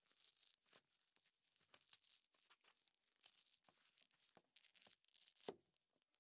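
Faint scratchy rustling of a kitchen scouring sponge being handled and pressed into a small mesh basket, in several short bursts, with a sharp tap about five and a half seconds in.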